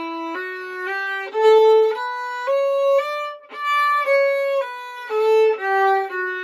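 Violin playing a slow scale that climbs and then steps back down, in groups of one quick, louder down-bow note followed by three notes slurred together in a single slow up bow.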